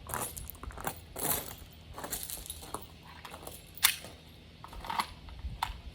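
Light metallic clicks and clinks from small metal objects being handled, with one sharper click nearly four seconds in.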